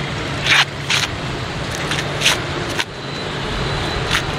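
Husks being torn and stripped by hand from ears of boiled sweetcorn: a few short, crisp rips and rustles over a steady hum of traffic.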